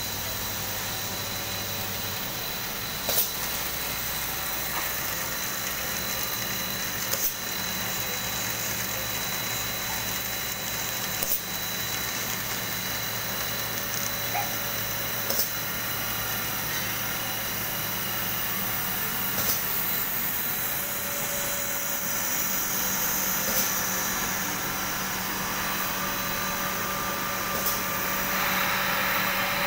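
Extrusion line machinery running: a steady hum with a thin high whine, and a sharp click about every four seconds. A louder hiss joins near the end.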